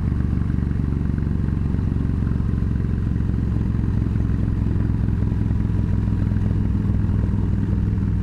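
Yamaha V Star 1300's V-twin engine running steadily at highway cruising speed, heard from the saddle, with an even pitch throughout.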